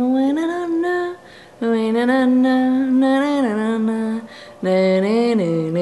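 A woman singing a remembered tune unaccompanied, in three long held phrases with short breaks between them, the last one lower.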